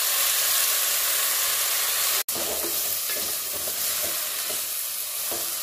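Onions frying and sizzling in hot oil in a metal pot as boiled gram and dill leaves are added and stirred in with a wooden spatula, with soft scraping strokes against the pot. The sizzle breaks off for an instant a little over two seconds in, then carries on slightly quieter.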